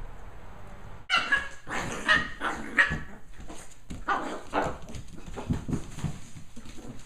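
Lhasa Apso puppies play-fighting, giving a quick run of high-pitched yips and barks that starts about a second in, with lower, rougher sounds in between.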